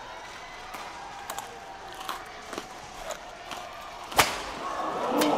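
Badminton rally in an indoor gym: rackets strike a shuttlecock with sharp clicks about every half second. About four seconds in comes a much louder smash, followed by a swell of noise.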